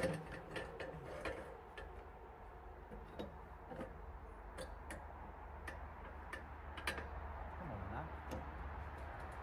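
Scattered light clicks and taps of hands working timber and fittings on a portable sawmill's steel bed, over a low steady rumble of distant road traffic.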